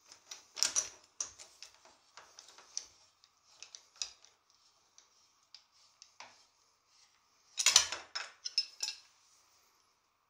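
Metal clicks and clinks from handling a Park Tool HHP-3 headset press on a bicycle head tube as its handles are turned, with a louder rattle of metal parts about a second in and the loudest clatter from about seven and a half seconds in, as the press comes off the head tube.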